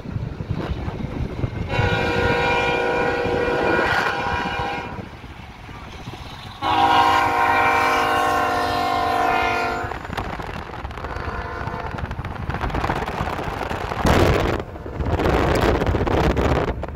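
Iowa Interstate diesel locomotive's multi-chime air horn sounding two long blasts, the second louder, then a faint short one, over the low rumble of the passing freight train. Near the end, loud rushing wind noise from the moving car drowns the train.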